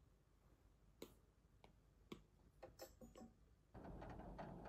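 Faint, scattered light taps of a stylus on a tablet's touchscreen, about half a dozen over three seconds. Near the end a steady low hiss comes in.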